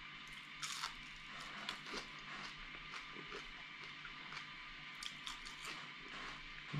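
A person chewing crispy fried bleak (small fried river fish): quiet chewing with small scattered clicks, and a brief hiss about a second in.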